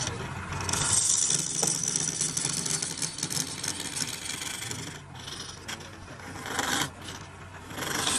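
Hand-held steel turning tool cutting into a wooden workpiece spinning on a wood lathe: a steady hissing scrape of wood being hollowed, with a low steady hum underneath. The scrape eases off about five seconds in and comes back in short surges near the end.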